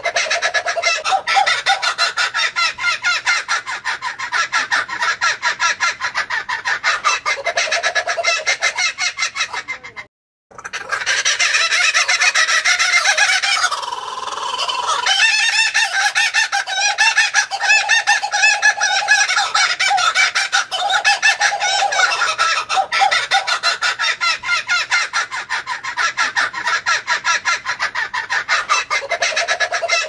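Laughing kookaburra calling: long, loud runs of rapid, repeated chuckling notes. The calling breaks off for a moment about ten seconds in, then carries on.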